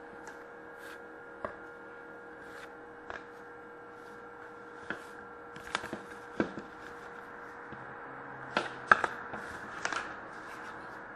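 Trading cards being handled and flipped through by hand: short paper clicks and flicks about once a second as each card is slid off the stack, over a steady low electrical hum.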